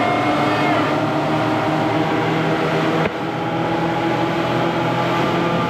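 Twin Honda 150 outboard motors running steadily at speed, over the rush of water and wake past the hull, with a sudden short dip in the sound about three seconds in.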